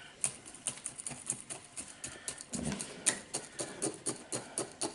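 Bonsai chopstick jabbing into granular potting substrate, an irregular run of small gritty clicks and ticks, several a second. The soil is being worked in among the roots to close air pockets.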